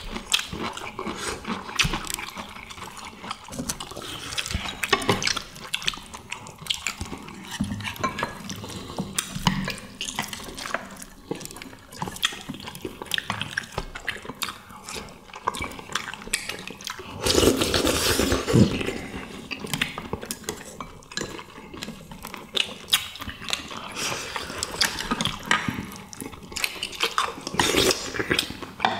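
Eating at a table: chopsticks and spoons clicking against porcelain plates and bowls while grilled sea bream is picked apart, with chewing and mouth sounds. There is a louder spell of eating noise about two-thirds of the way in.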